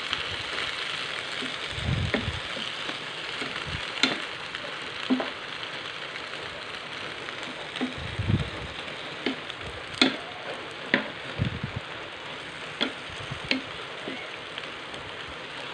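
Sliced cabbage sizzling in a frying pan as it is stir-fried, with a wooden spatula clicking and scraping against the pan every second or so and a few dull bumps.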